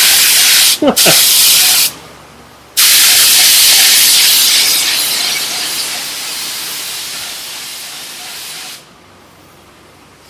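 Air spray gun spraying clear coat, a loud hiss with two pulls of the trigger. The first stops after about two seconds with a brief break near one second; the second runs about six seconds, easing off a little before it cuts off.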